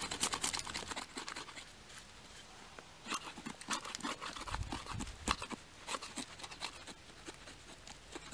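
Fixed-blade knife shaving bark off a wooden stick in quick, irregular scraping strokes, with a lull of about two seconds about a second in.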